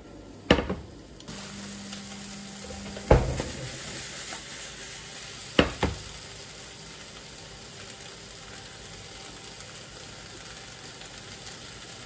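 Food frying in a pan, a steady sizzle that starts about a second in, broken by three sharp knocks in the first half.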